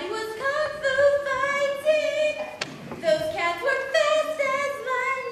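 A female voice singing unaccompanied in long held notes with vibrato, moving between a few pitches.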